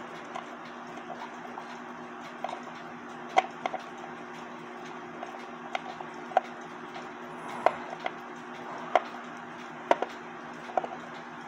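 Scattered light clicks and taps, about a dozen at uneven intervals, from a screwdriver, screws and small metal parts being handled while a cuckoo clock's movement is taken out of its wooden case, over a steady low hum.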